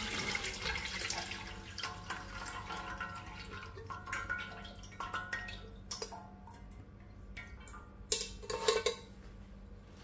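Broth poured from a pan through a metal mesh strainer into a pot, splashing and trickling and tapering off over the first few seconds. A few metal clinks of pan and strainer follow, with a louder clatter near the end.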